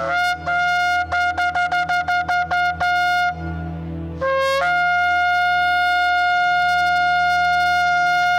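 A horn blown in a series of blasts: a rapid run of about nine short staccato notes, then, about four seconds in, a blast that leaps up in pitch and is held as one long steady note.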